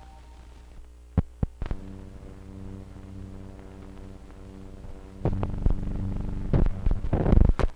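Steady hum with its overtones from the soundtrack of blank film leader running through a projector. A few sharp pops come about a second in, and louder crackling and pops follow from about five seconds in.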